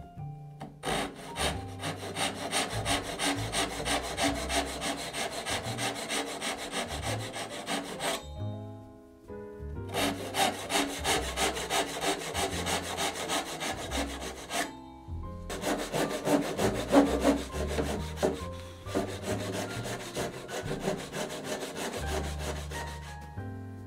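Japanese pull saw cutting into cherry wood by hand, rasping in a quick, even stroke rhythm. It goes in three runs with two short pauses.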